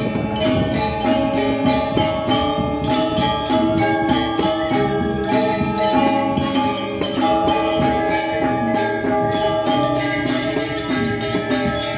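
Balinese gamelan playing Rejang dance music: bronze metallophones ringing over fast, even strokes.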